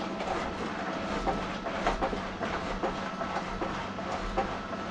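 Steering of a homemade snowmobile turned back and forth by its handlebar: the steering linkage and ski suspension joints give many small irregular metal clicks and rattles. A steady electrical hum runs underneath.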